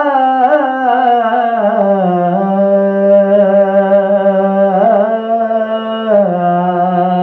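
Unaccompanied soz khani: male voice chanting an Urdu elegy in one long melismatic line, holding notes that waver and step down in pitch about two seconds in, rise again near five seconds, then drop once more.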